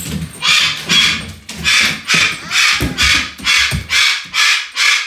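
White cockatoo screaming over and over, about two harsh screams a second, with a few low thumps.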